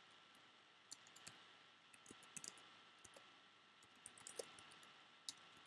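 Faint computer keyboard typing: irregular, scattered keystroke clicks over a low hiss.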